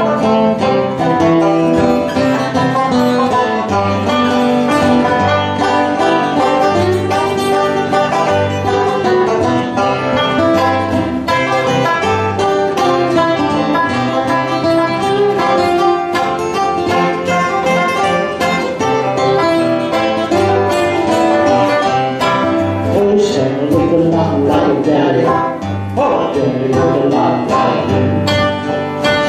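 Small live acoustic band playing an upbeat country Christmas song on acoustic guitars and other plucked strings.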